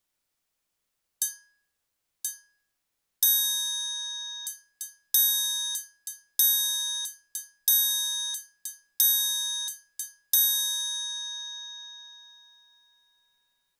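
Roland SPD::ONE Percussion pad playing its triangle sample, struck with sticks. Two short muted hits come first, then a rhythm that mixes open, ringing strikes with quick muted ones. The last open strike rings out and fades over about three seconds.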